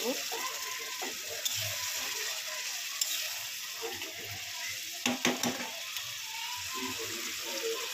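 Potato curry bubbling and sizzling in a kadai while a spatula stirs it, with a few clicks and scrapes of the spatula against the pan, a cluster of them about five seconds in.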